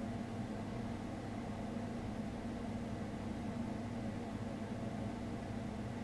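Steady low background hum, with a constant drone near 200–250 Hz and no bird calls.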